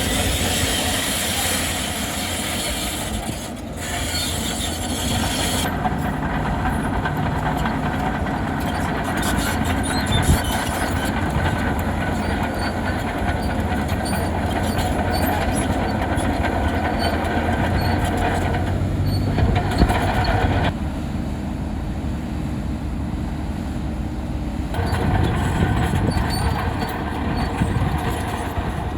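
Bulldozer working: a steady diesel engine with the clatter of its steel tracks. The sound changes abruptly a few times.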